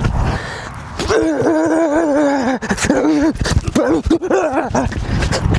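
A dog whining in long, wavering, high-pitched cries, the longest lasting about a second and a half, then several shorter ones. Scattered sharp clicks and a low rumble run underneath.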